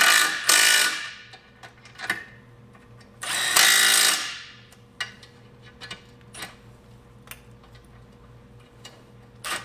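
Cordless impact wrench hammering ball-joint bolts tight on a 2001 VW Beetle's front suspension, in two short bursts: one at the start and one about three and a half seconds in. Light metallic clicks of tools and parts in between.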